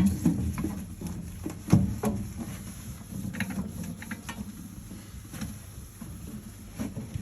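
Scattered clicks and knocks of objects being handled, over a low steady hum.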